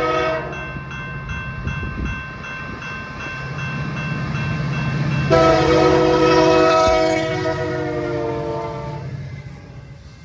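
Freight train's diesel locomotive horn sounding a chord, with the locomotive engines rumbling underneath. A blast cuts off just after the start, the horn is held faintly for a few seconds, then it sounds loudly again about five seconds in and fades out near nine seconds.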